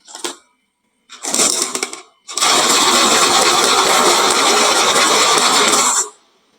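Marbles rolling and clattering down a wooden slope marble run: a short rattle, another about a second in, then a long dense rattle of many marbles that cuts off near the end.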